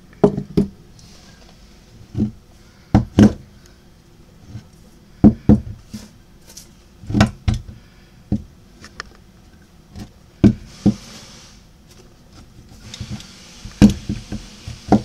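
Handling noise from an OMC V-6 outboard carburetor being turned over in the hand: irregular sharp knocks and clunks of its metal body and linkage against hands and the work surface.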